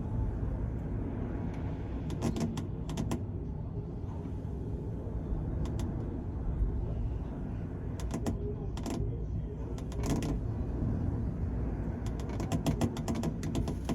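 Steady low rumble of the car ferry Kiso under way at sea, its engines and the water along the hull. Scattered sharp clicks and taps come in small clusters: a few near the start, a run about eight seconds in, and another near the end.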